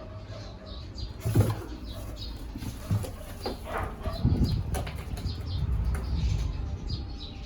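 Cats scrambling in a cardboard box: rustling with several thumps, the loudest about a second in.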